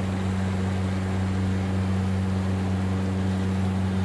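Steady low mechanical hum with a constant drone and a faint hiss, unchanging in level and pitch.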